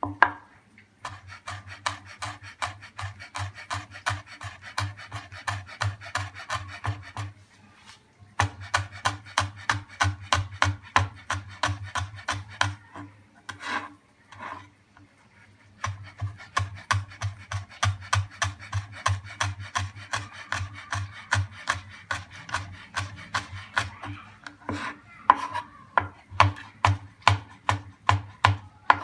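Kitchen knife chopping green chillies on a wooden cutting board: quick, even knife strokes several a second against the board, in three runs with short pauses between.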